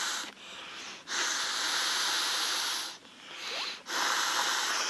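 A person blowing breaths into the open valve of a self-inflating sleeping pad. Long rushes of air come with short pauses to breathe in between: one ends just after the start, one lasts nearly two seconds, and another begins about four seconds in.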